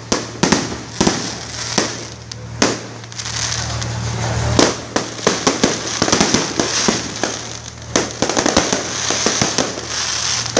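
Aerial fireworks going off overhead: an irregular string of sharp bangs and pops with a crackling fizz between them. The reports come thicker and faster in the second half.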